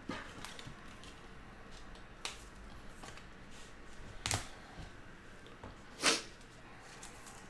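Baseball trading cards being handled and flipped through by hand: four short, sharp rustles about two seconds apart, the loudest near the end.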